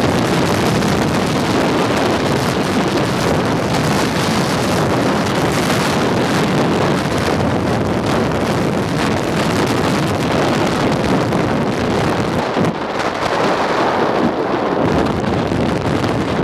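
Steady wind rush buffeting the microphone of a camera in a moving car, over road noise from the car travelling at speed.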